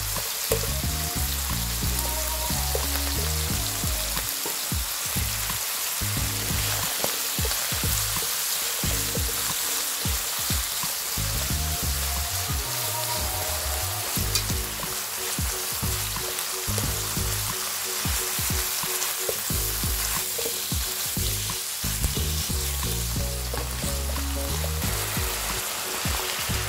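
Diced pork and potato sizzling in hot oil in a nonstick wok, stirred and tossed with wooden chopsticks.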